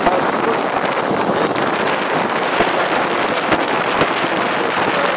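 Wind rushing over the microphone of a moving vehicle, an even loud noise with road noise beneath it and a few brief knocks about halfway through.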